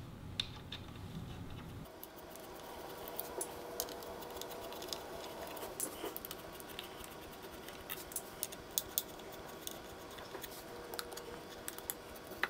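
Small metal clicks and scrapes from an Allen key working loose the screws that hold a tweeter in a speaker's front baffle. The clicks are scattered and irregular, and come thickest from about three seconds in.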